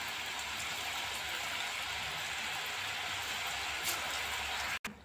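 Rice-flour finger chips sizzling steadily as they deep-fry in hot oil in a kadhai. The sizzle cuts off suddenly near the end.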